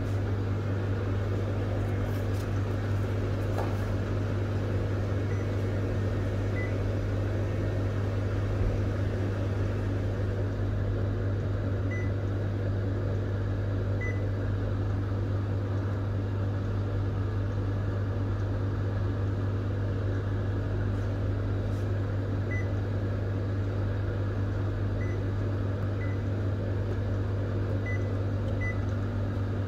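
Kyocera TASKalfa colour multifunction printer running with a steady low hum while it prepares to print. A few short beeps come from its touch panel as buttons are pressed, twice in the middle and several times near the end.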